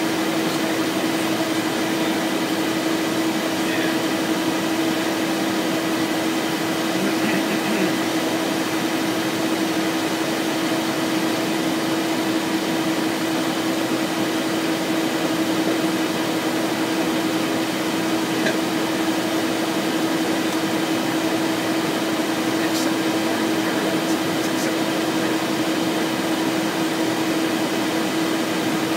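Steady cockpit noise of a Cessna Citation Excel jet in flight: a constant rush of air with a steady hum running through it, from the twin Pratt & Whitney PW545A turbofans and the airflow over the airframe. No change in the engine sound during the descent.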